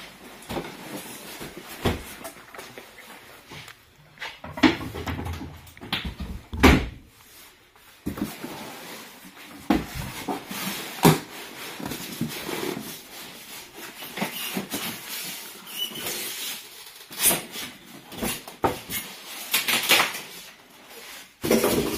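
Irregular knocks, clicks and clatter of parts being handled and fitted while a coffee machine is installed.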